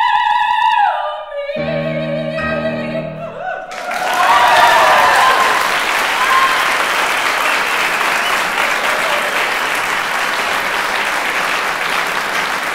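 Operatic soprano holding a high final note, then a lower held note over two piano chords as the song ends. The audience then breaks into steady applause, about four seconds in.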